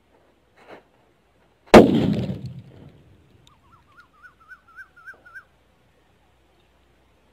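A firecracker goes off under a coconut with one loud bang about two seconds in, blowing the coconut away; the blast tails off over about a second. A wavering, slowly rising whistle follows for about two seconds.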